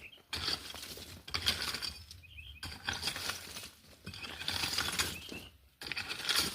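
A manual landscaping hand tool working the ground in repeated gritty, clinking strokes, about one every second or so.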